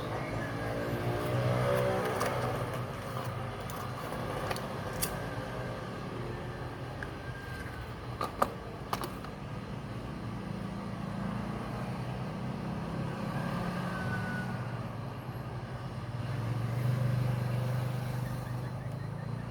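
A motor vehicle engine running steadily, rising in pitch and getting louder about one to two seconds in and swelling again near the end, with a few sharp clicks around the middle.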